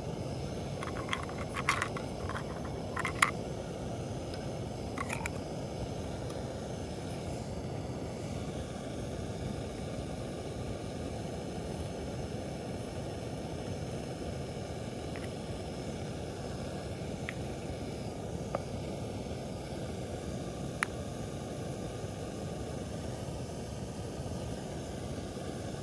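Steady low rushing of a distant waterfall. Over it, a few sharp plastic clicks come from the parts of a portable espresso maker being handled and fitted together: a cluster about one to three seconds in, the loudest near three seconds, one more around five seconds, then a couple of faint ticks later.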